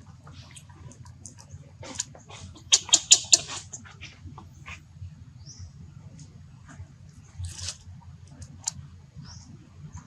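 Baby monkey giving short, high-pitched squeaks, a quick cluster of them about three seconds in, with scattered smaller squeaks and clicks around them over a low steady hum.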